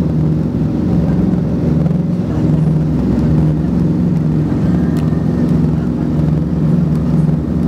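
Four piston radial engines (Wright R-3350 Turbo Compounds) and propellers of a Douglas DC-7B heard from inside the cabin, running at climb power just after takeoff. Steady, loud drone with a slow, wavering beat between the engines.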